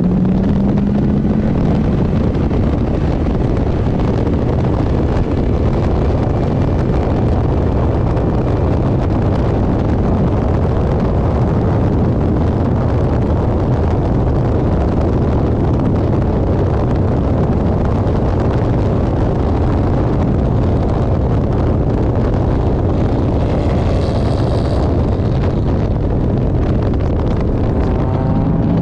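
GM engine of a Lemons race car running loud and steady under load, with wind buffeting the microphone. The engine note climbs briefly near the start and again near the end, and a short high squeal comes late on.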